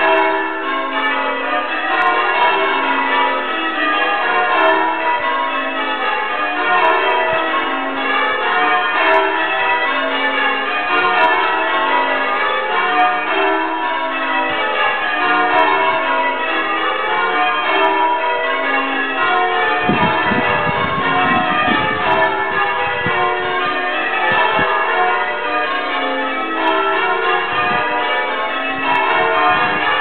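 Change ringing on a 14 cwt ring of eight church bells, heard from outside the tower: a continuous, even stream of bell strikes with overlapping ringing tones. A low rumble joins it briefly about two-thirds of the way through.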